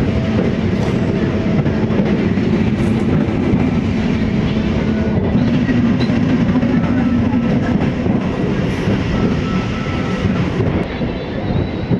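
MEMU electric multiple-unit passenger train running steadily along the track, with continuous wheel and rail noise.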